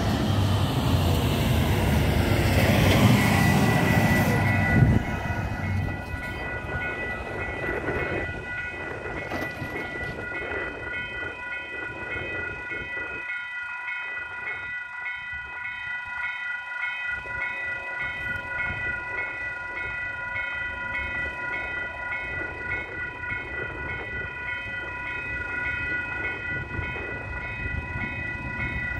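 Railway level crossing warning bells start ringing about three seconds in and keep up a steady, evenly repeating electronic ring, the signal that a train is approaching. For the first five seconds a loud rushing noise is the loudest thing, and it cuts off suddenly.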